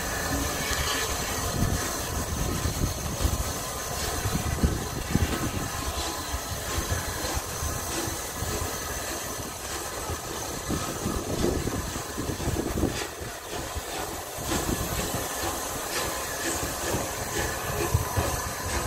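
Steam hissing over the rumble and irregular clicks of a steam train's carriage moving slowly over the rails.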